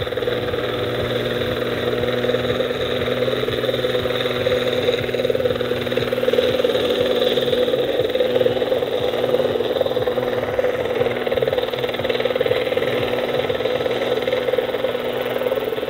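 Large electric scale model helicopter, a Bell AH-1F Cobra with a 3.25 m main rotor driven by an X-Nova XTS 4535 motor, hovering low near the ground: a steady drone from the electric drive and spinning rotor, a little louder in the middle.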